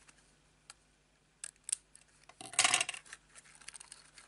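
A few light clicks, then a short metallic clatter about two and a half seconds in: craft scissors being put down on a cutting mat while a small paper box is handled.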